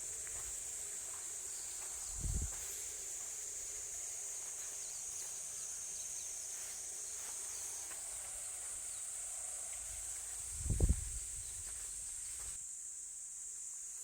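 A steady, high-pitched drone of insects in the woods. There are two dull low thumps, one about two seconds in and a louder one near eleven seconds.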